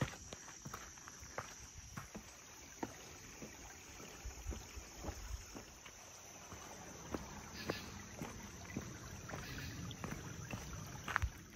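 Footsteps scuffing and crunching irregularly on a rough, rocky hiking trail, over a steady high-pitched insect drone.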